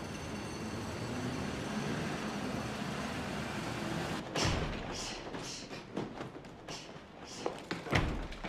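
Steady rushing noise, then two heavy thuds, one about four seconds in and one near the end, with short quick scuffs of running feet between them: doors banged open during a chase on foot.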